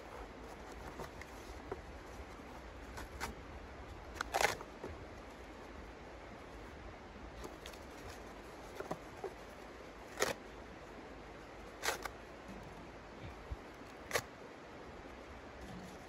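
Irregular light clicks and taps, a dozen or so, scattered over a steady background hiss; the sharpest comes about four seconds in.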